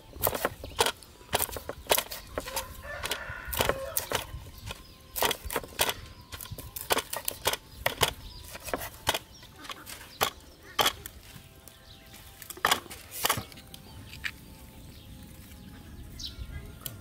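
Cleaver chopping through a snakehead murrel fish into a wooden chopping board: a run of irregular sharp knocks, about one or two a second, which stop about 13 seconds in.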